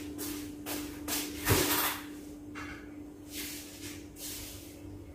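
Water heating to a boil in an electric rice cooker: uneven hissing and bubbling in short bursts over a steady hum, with a soft knock about one and a half seconds in.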